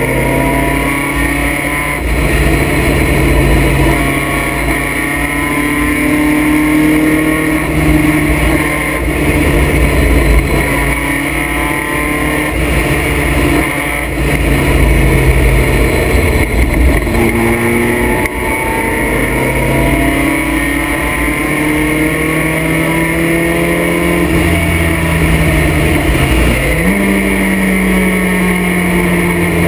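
Vintage race car's engine heard from its own open cockpit at racing speed: the pitch climbs slowly as it pulls through the gears, drops off into the corners and rises again. Near the end the pitch dips and then jumps sharply with a gear change.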